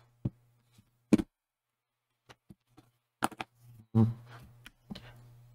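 Sparse small plastic clicks and taps from handling a laptop's screen bezel and lid while a loose plastic piece is pried back into place.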